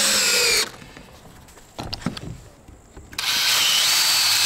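Cordless drill/driver sinking a wood screw into a pine 2x4: the motor whine drops in pitch as the screw seats and stops under a second in. After a pause with a couple of light knocks, it spins up again about three seconds in on the next screw.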